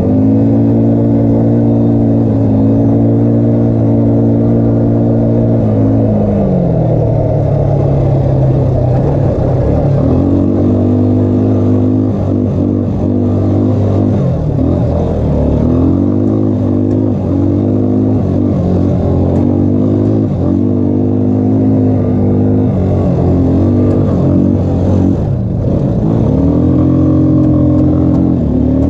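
ATV engine under load on a climb. It holds one pitch for about six seconds, drops, and from about ten seconds on revs up and down again and again.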